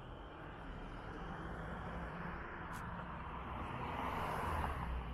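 A road vehicle driving past, its noise swelling steadily to a peak near the end before easing off.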